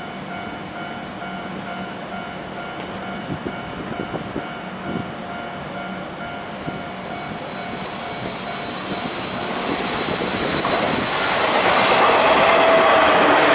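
A level-crossing warning bell rings in a fast, even repeating ding. From about nine seconds in, an approaching Hiroden Miyajima Line tram's running noise swells and grows loud.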